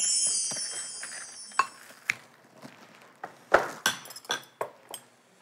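Light clinks of tableware, chopsticks or spoons against bowls and glasses, about eight small scattered taps. A high falling tone fades out at the start.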